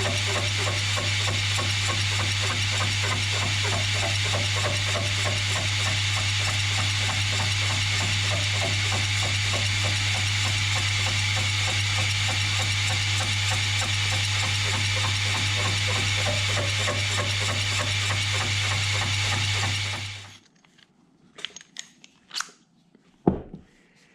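Machine running with a steady hum while cutting the slit in a small steel collet, mist coolant hissing over the fine, rapid ticking of the cut. About 20 seconds in it stops abruptly, and a few light metal clicks and knocks follow.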